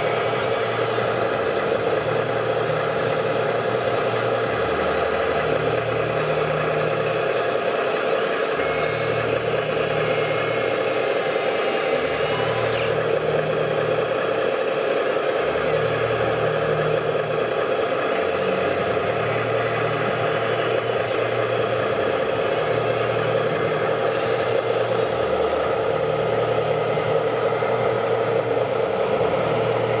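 A 1:16 scale radio-controlled Liebherr 634 crawler loader and model tipper truck running: a steady mechanical whine with a low engine-like rumble that rises and falls every couple of seconds as the loader works.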